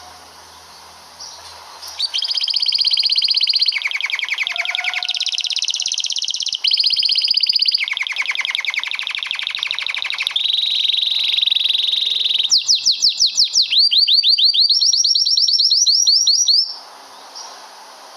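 Male domestic canary singing a long rolling song: a chain of rapid trills, each held for a second or two before switching to a new note type, with fast sweeping notes near the end. The song starts about two seconds in and breaks off abruptly about a second and a half before the end.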